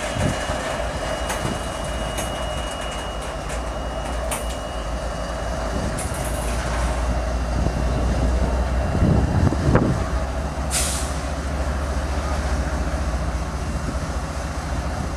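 Diesel engines of two BNSF freight locomotives running at close range with a steady low rumble. A thin high whine sounds for the first few seconds, and the rumble briefly grows louder about nine to ten seconds in.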